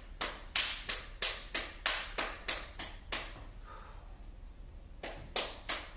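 Sharp hand claps in a steady beat, about three a second, stopping about three seconds in and starting again near the end.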